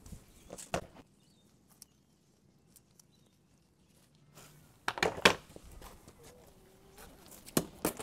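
Scattered sharp knocks and clatters against a quiet background, a loud cluster about five seconds in and another near the end, with a faint brief wavering tone just after the loud cluster.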